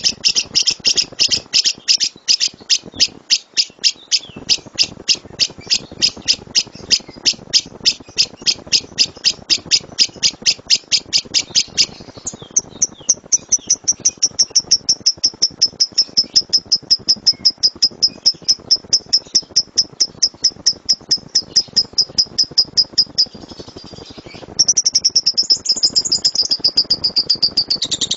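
Lovebird giving its rapid-fire 'tembakan' call: a long run of sharp, high chirps at about five a second. About halfway through it switches to a thinner, higher and quicker series, pauses briefly near the end, then breaks into a dense continuous trill.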